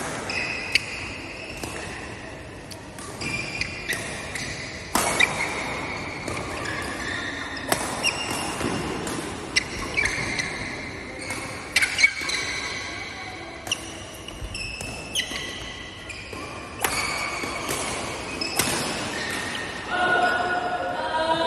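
Badminton rally: sharp racket hits on the shuttlecock about every one to two seconds, with shoes squeaking on the court floor between them. Voices come in near the end.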